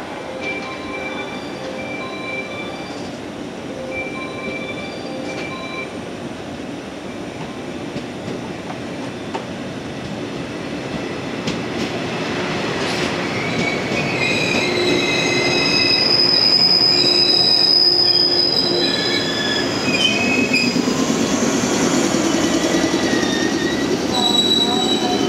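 Electric multiple-unit train pulling in along the platform. Its wheels squeal faintly on and off at first, then loudly with several high-pitched tones from about halfway, over a rumble that grows louder as the cars pass close by.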